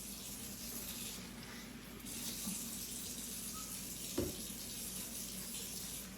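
Steady rush of water running from a tap over a low steady hum, with one brief downward-sliding sound about four seconds in.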